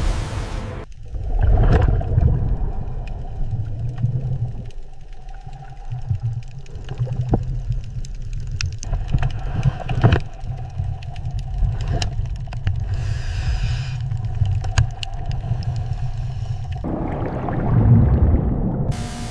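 Deep, steady rumble of a diving bell being lowered through the water, with scattered knocks. It swells louder about two seconds in and again near the end.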